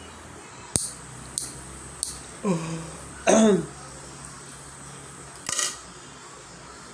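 Metal fingernail clipper snipping nails: sharp clicks, three in the first two seconds and a double click near the end. In between, two short vocal noises from the person, the second, at about three and a half seconds, the loudest and falling in pitch.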